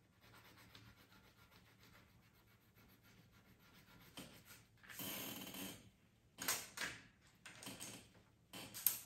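A coloured pencil scratching faintly on paper, then a louder rubbing sound about five seconds in, followed by several sharp clicks as wooden coloured pencils are handled and set down on the tabletop near the end.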